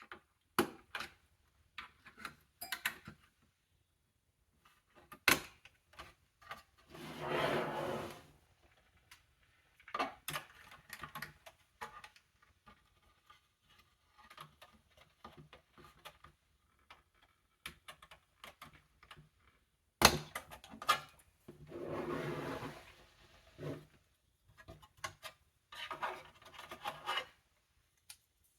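Hands working on the case and parts of a Dell Inspiron 3030 small-form-factor desktop during a teardown: scattered clicks and knocks, the sharpest about two-thirds of the way through, and a few longer scraping sounds lasting a second or two each.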